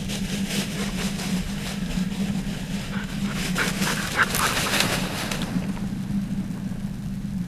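Tall dry grass rustling and swishing as someone pushes through thick cover, over a steady low hum; the swishing dies away about five and a half seconds in.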